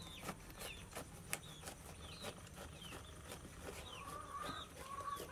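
A small kitchen knife working into the spiky green rind of a whole jackfruit, heard as faint scattered clicks. Short bird calls chirp in the background, with one held note near the end.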